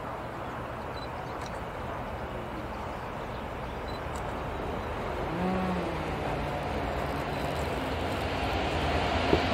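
Class 66 freight locomotive's two-stroke V12 diesel engine approaching with a train of box wagons, its low drone growing steadily louder.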